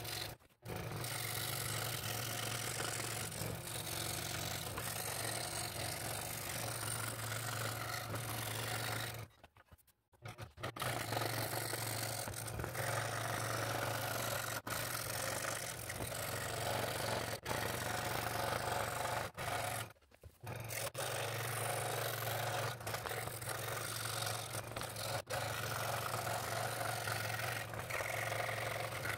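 Scroll saw running with a number 5 blade, cutting an interior cut through stacked wood: a steady motor hum under the rasp of the blade. The sound drops out briefly twice, about ten and twenty seconds in.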